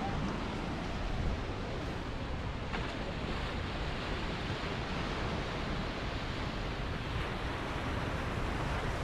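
Steady wash of small waves breaking on a sandy beach, with wind rumbling on the microphone.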